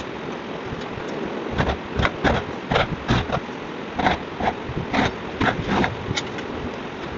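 About a dozen irregular knocks and clicks from hand work on the lock hardware at the edge of a wooden door, over a steady background hiss.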